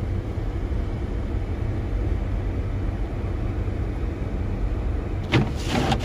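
Steady low rumble of a running car heard from inside its cabin, with a sharp click about five seconds in.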